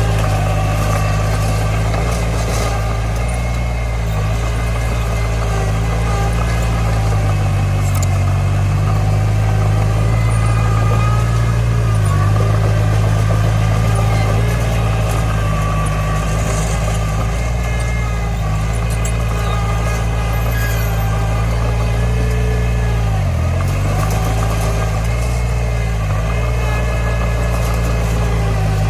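Komatsu D20 bulldozer's diesel engine running steadily, its pitch dipping briefly twice near the end as the engine takes load.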